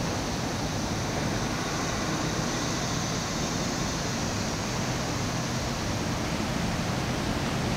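Steady background ambience: an even hiss with a faint high steady tone, with no distinct events.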